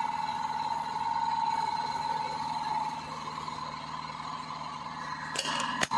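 ATC CNC router spindle running with a steady high whine as it carves a wooden spindle turning on the machine's rotary axis. The whine drops in level about halfway through, and two short sharp clicks come near the end.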